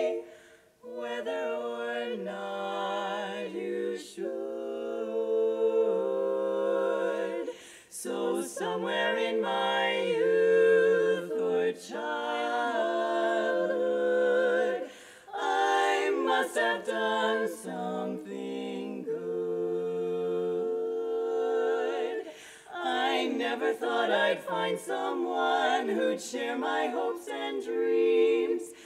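Women's barbershop quartet singing a cappella in four-part close harmony, holding long chords between short breaks for breath.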